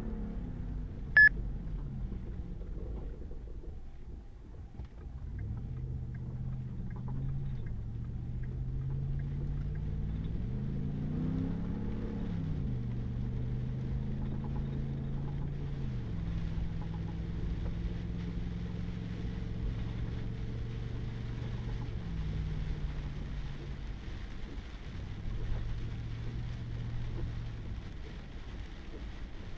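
Pickup truck's engine and road noise heard from inside the cab while driving a wet gravel road, the engine note holding steady and then rising and falling with speed changes. A short, sharp tone sounds once about a second in, the loudest moment. Rain and road hiss grow in the second half.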